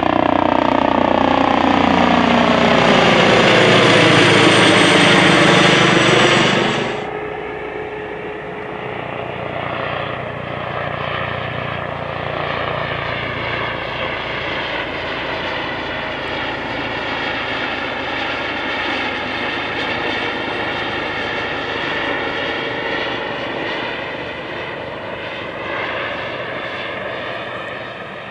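Airbus H135 (Juno HT1) helicopters with twin turbines and a shrouded Fenestron tail rotor flying low past. First one passes loud and close overhead, its whine falling in pitch as it goes by, until the sound cuts off abruptly about seven seconds in. Then a second one flies by further off, a quieter steady rotor and turbine whine that slowly rises and falls in pitch and fades a little near the end.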